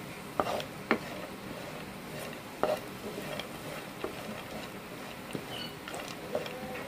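Chopped dry fruits frying in ghee in a non-stick pan, with a steady sizzle. A spatula stirs them and scrapes and taps against the pan a few times.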